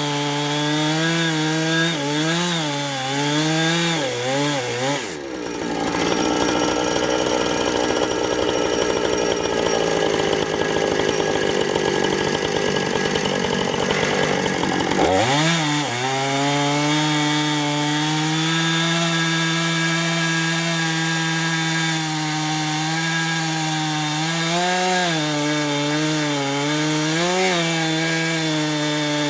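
Husqvarna 455 Rancher two-stroke chainsaw cutting a log lengthwise in a chainsaw mill, its engine pitch wavering under load. About five seconds in the steady tone gives way to a rougher, lower sound for about ten seconds, then the pitch climbs back and the saw runs steadily again.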